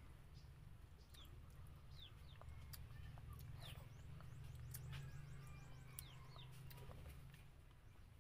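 Faint high bird chirps, each dropping quickly in pitch, several times over a steady low hum, with scattered soft clicks.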